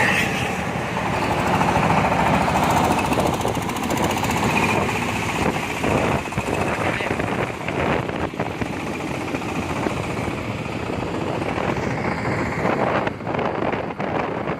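Corn sheller driven by a 26 HP Jiangfa engine, running with a dense, rapid mechanical clatter, and sharper irregular knocks from about six seconds in.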